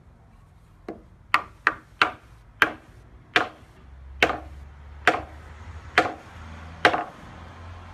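A mallet striking a wooden beam, driving a timber brace into an interlocking joint. There are about ten sharp knocks, the first few close together and the later ones about a second apart.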